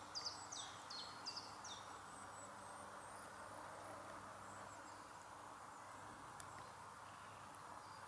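Faint outdoor ambience: a steady soft hiss of background noise, with a small songbird singing a quick run of high, falling whistled notes in the first two seconds.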